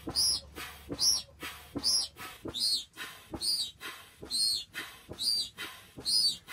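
Manual air pump inflating a KingCamp inflatable couch sofa. With each stroke there is a short knock and then a squeaky rush of air that rises and falls, a little more than one stroke a second.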